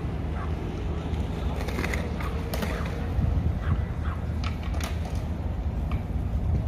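Outdoor background noise: a steady low rumble with a low hum, and short high-pitched chirps and squeaks scattered through it.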